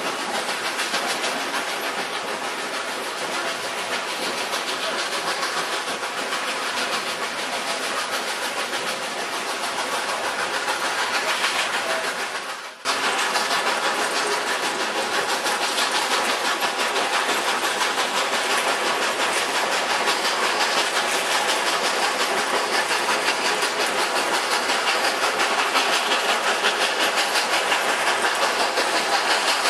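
Steam train climbing a grade, heard from an open passenger car: the steady rumble and clatter of wheels on rails, with the 2-8-0 steam locomotive working ahead. About thirteen seconds in, the sound briefly drops out and then comes back.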